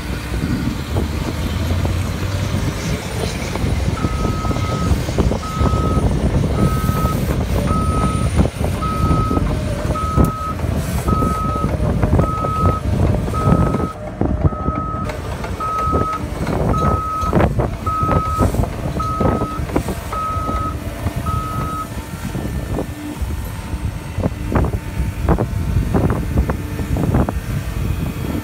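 Cat 325F excavator's diesel engine running while it lifts a concrete block, with scattered knocks and clanks. A backup alarm beeps about once a second, starting a few seconds in and stopping about three quarters of the way through.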